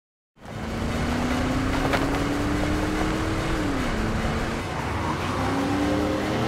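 Car engine accelerating hard, its pitch climbing steadily, dropping at a gear change a little past halfway, then climbing again, over a steady rush of road noise.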